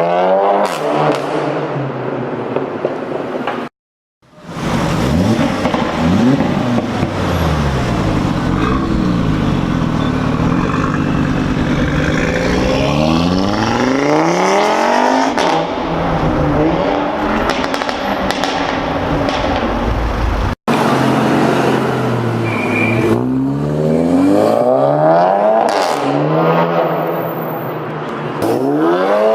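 Performance car exhausts under hard acceleration, one clip after another. The engine note climbs and then drops back again and again, the quick gear changes that give the dual-clutch upshift 'fart'. The sound cuts out briefly twice, between clips.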